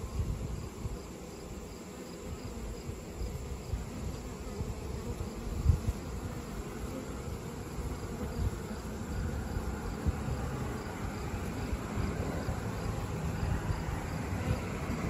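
Dense, continuous buzzing of a honeybee swarm hanging as a cluster, with bees flying in and landing on it. A single low thump on the microphone about halfway through.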